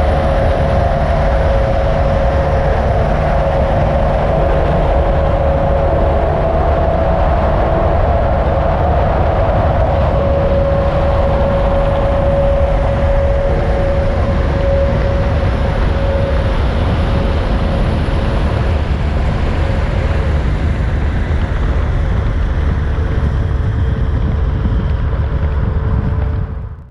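Steady, loud vehicle road noise: a continuous low rumble with a faint drone on top that does not change, cutting off abruptly near the end.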